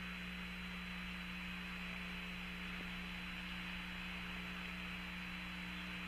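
Steady static hiss and hum of an open air-to-ground radio link between transmissions, with a faint constant high tone running through it.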